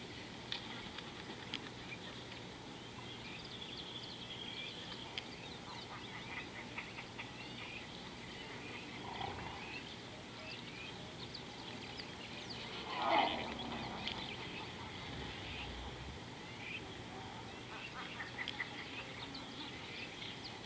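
Outdoor bush ambience of birds chirping and calling in many short notes, with one louder call about thirteen seconds in.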